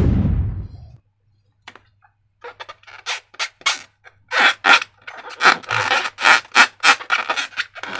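Slime being squeezed and worked by hand: a run of short, sticky squelches and crackles, about three a second, beginning a little over two seconds in. It is preceded by a loud sound right at the start that fades out within a second.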